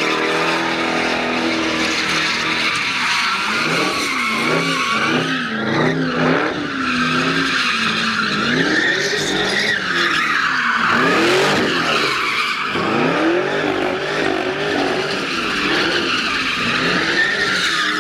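Second-generation Cadillac CTS-V's supercharged V8 revving up and down while its rear tyres screech without a break as it spins donuts.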